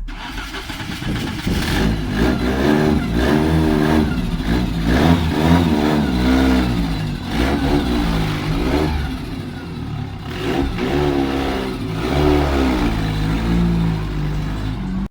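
Car engine, the restored 1988 Volkswagen Jetta's, revving up and falling back several times, its pitch rising and dropping with each rev.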